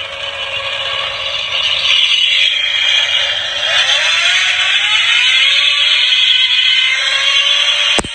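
Recorded supercar engine sound played loud through the small speaker of a car-model alarm clock, thin with no bass, with the revs rising in the middle. A sharp click near the end.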